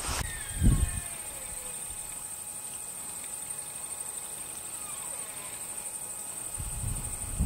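Insects calling in the background: a steady, high-pitched, finely pulsing trill that never lets up. Faint falling whistles can be heard near the start and again about five seconds in.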